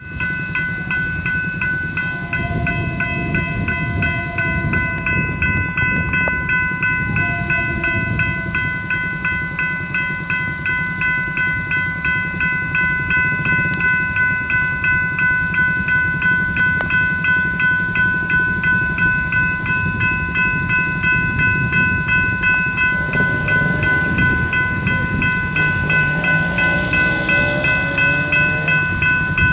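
Level-crossing warning bell ringing in a steady, evenly repeating pulse, signalling that a train is approaching. Near the end, a car passes over the crossing underneath it.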